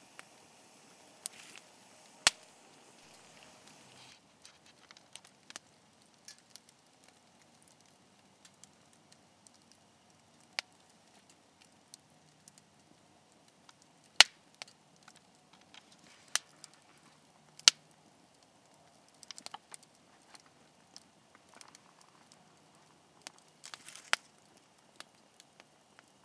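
Wood campfire burning with scattered crackles and sharp pops from the logs, several loud single snaps a few seconds apart and small flurries of crackling.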